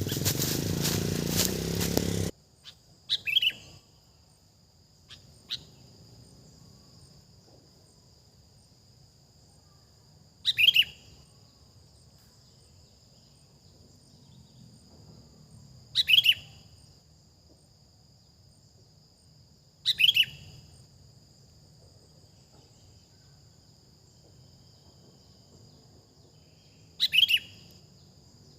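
Sooty-headed bulbul (kutilang) giving short, loud calls that fall in pitch, six in all, spaced several seconds apart, over a steady high insect drone. The calls follow a loud rumbling noise that cuts off about two seconds in.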